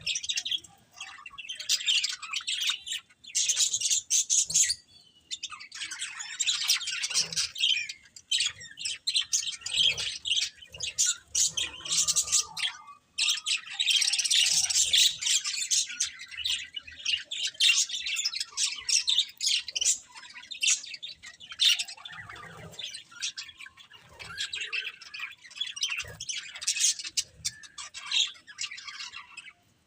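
Budgerigars chirping and chattering in quick, continuous twittering, with short squawks mixed in and a few brief pauses.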